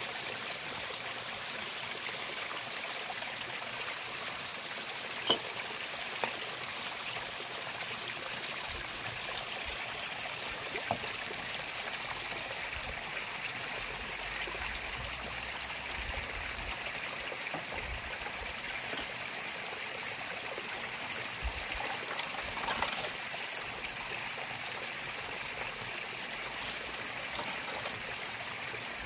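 Shallow stream running over rocks, with water trickling and splashing as dishes and spoons are rinsed in it. A few sharp clinks of utensils, the loudest about five seconds in.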